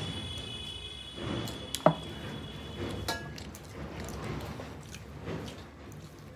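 Rice and curry being mixed and scooped by hand on steel plates, with eating sounds. About two seconds in, a sharp metallic clink with a short ring as a steel tumbler is set down.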